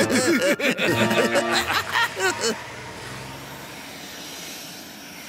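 Cartoon villains snickering and laughing in a quick run of short rising-and-falling notes. After about two and a half seconds this gives way to a quieter, steady whoosh of a cartoon rocket in flight.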